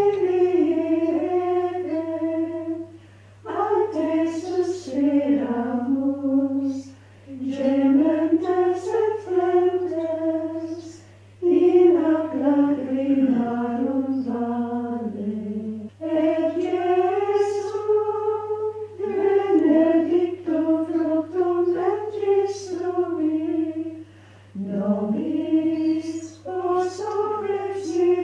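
Carmelite nuns singing a slow hymn unaccompanied: women's voices on a single melody line, in phrases broken by short pauses for breath.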